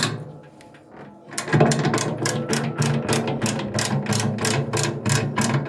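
Ratchet wrench clicking: one click, a pause, then a fast even run of about five clicks a second from about a second and a half in.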